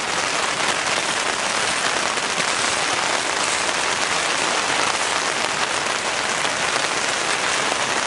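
Heavy rain falling on a tent, heard from inside as a steady, dense hiss.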